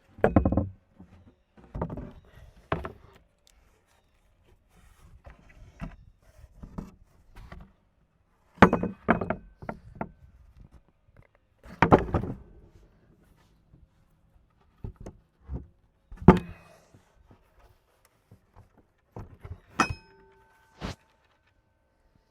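Wooden cover boards being handled and set down over a sawmill husk, making scattered thuds and knocks in separate bursts. One knock near the end rings briefly, like metal.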